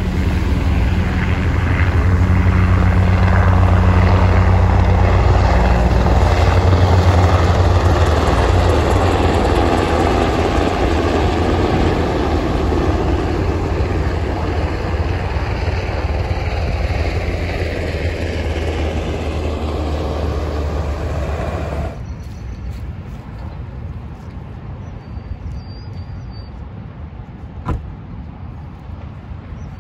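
Two helicopters flying low past: a loud, steady rotor and engine sound that peaks a few seconds in and slowly fades as they move away. It cuts off abruptly about two-thirds of the way through, leaving a much quieter background with one sharp click near the end.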